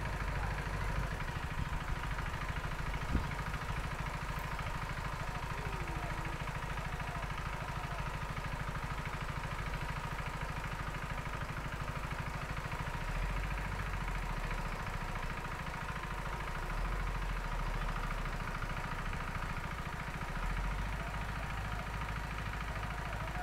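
A small engine idling steadily with a low, even rumble, and a single sharp click about three seconds in.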